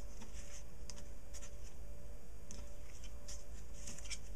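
Light, irregular scratchy rustles of twine being pulled and rubbed against cardstock as it is wrapped and tied around a scrapbook page, over a steady low background hum.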